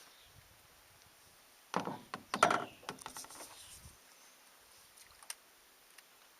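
A burst of knocking and clattering against a small boat's hull, lasting about two seconds and starting a couple of seconds in.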